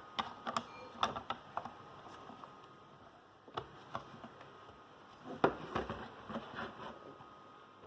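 Plastic back cover of a video doorbell being slid on and clicked into place by hand: scattered small clicks and scrapes, a few in the first second and a half, two more near the middle, and a cluster about five to seven seconds in.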